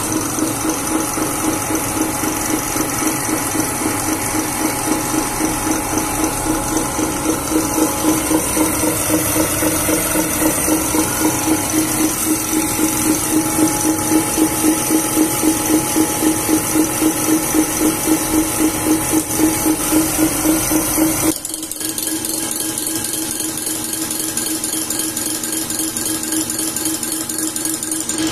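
Diesel injection pump test bench running a VE rotary injection pump under test: a steady mechanical hum with a regular pulsing beat. About three-quarters of the way through it abruptly gets quieter and the low rumble drops away.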